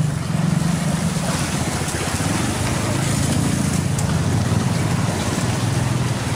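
A small engine running steadily, a low even drone.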